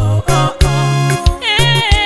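Music: a gospel-style song with singing voices over a heavy, sustained bass line and a regular drum beat.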